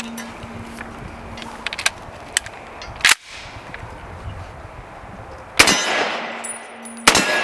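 M1 Garand rifle firing full metal jacket rounds at steel targets: shots about three, five and a half and seven seconds in, with metallic clangs of the steel being hit.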